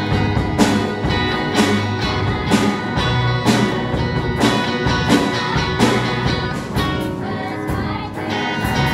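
A children's rock band playing live on drum kit, electric guitars, bass guitar and acoustic guitar, with young voices singing over a steady drum beat.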